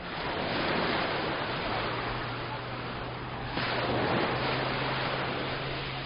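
Mediterranean surf washing onto a sandy beach, with two waves swelling and breaking, about a second in and again about three and a half seconds in.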